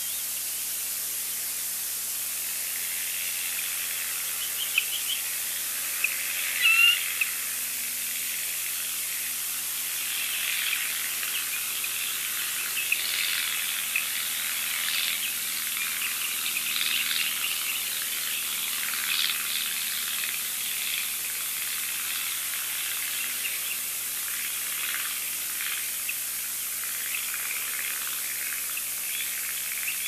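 Bald eagles calling: bursts of high, thin chirping and chittering calls, loudest about six to seven seconds in, over a steady high hiss.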